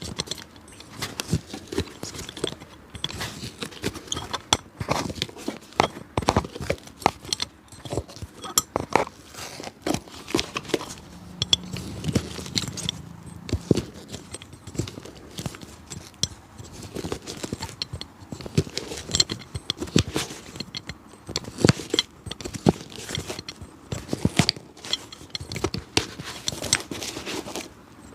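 Cobbler's hand tools working on an old shoe: a busy run of irregular sharp clicks, taps and short scrapes.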